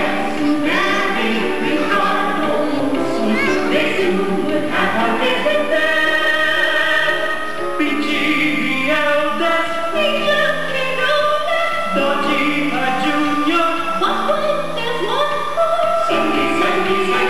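Several singers, men and women, singing a melody together through handheld microphones, with long held notes.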